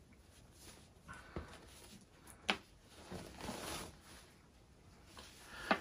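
Faint rustling of a fabric drawstring dust bag as its cord is loosened and the bag pulled open, with two soft clicks, one midway and one near the end.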